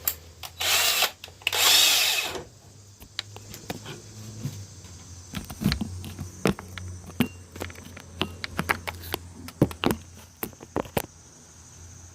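Cordless drill run in two short bursts, about a second each, then a string of clicks and knocks from metal parts and tools being handled.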